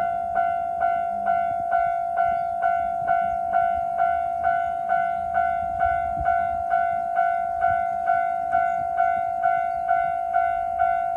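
Japanese railroad crossing warning bell ringing its steady 'kan-kan', a ringing tone with overtones struck a little more than twice a second.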